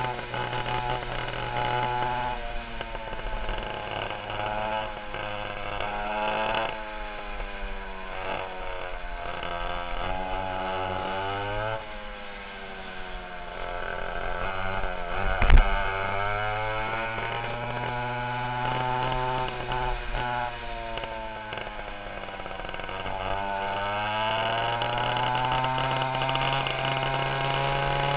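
Twin two-stroke 820 chainsaw engines of a go-kart at full throttle, revving up and dropping back over and over as the kart speeds up and slows. One sharp knock about halfway through.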